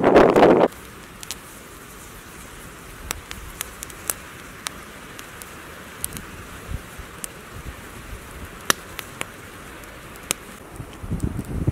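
Wood campfire crackling, irregular sharp snaps and pops over a soft steady hiss. It opens with a short loud stretch of kindling being split with a hatchet, which cuts off abruptly under a second in. A low rumble comes near the end.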